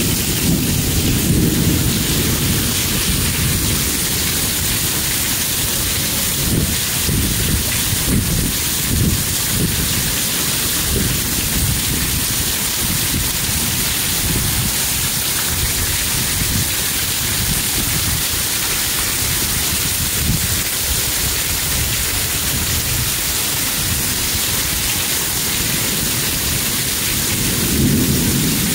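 Heavy thunderstorm rain pouring steadily onto grass and pavement, a dense hiss. A low rumble swells near the start and again near the end.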